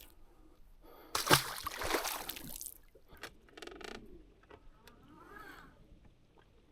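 Water splashing loudly for a second or two, about a second in, typical of a just-caught bass being dropped back over the side of a boat. It is followed by a few faint clicks and rustles.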